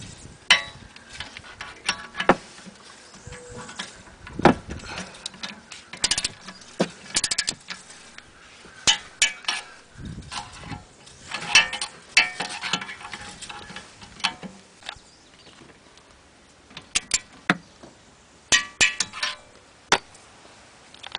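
Ratchet wrench clicking in short runs, with metallic clinks of tools on steel, as the four mounting bolts of a new rear wheel hub bearing are tightened.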